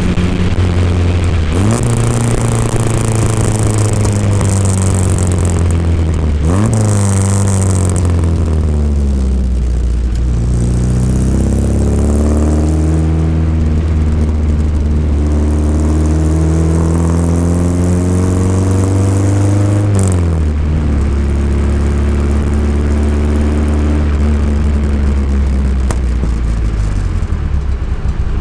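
Mk I Lotus Cortina's Lotus-Ford twin-cam four-cylinder engine under way, heard from inside the cabin. The engine note drops sharply and climbs again about six seconds in, rises steadily after about ten seconds, and falls off about twenty seconds in and again near the end. Wind and road noise hiss over it in the first few seconds.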